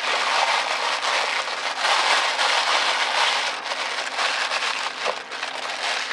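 Food frying in a hot pan: a dense, steady sizzling hiss full of fine crackles.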